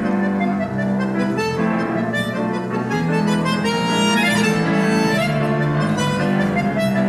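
Accordion and grand piano playing a duo live, the accordion holding sustained notes and chords over the piano.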